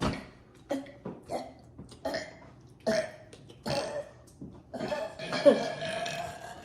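A boy burping again and again from the fizz of a chugged carbonated soda. A string of short burps is followed near the end by one long burp lasting nearly two seconds.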